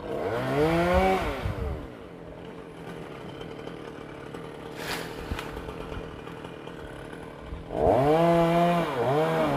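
Chainsaw revving up and easing off, then running quieter and steady for several seconds. Near the end it revs hard again, its pitch dipping and climbing back twice.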